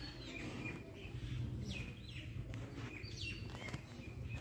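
Birds chirping: several short calls that slide down in pitch, over a steady low rumble.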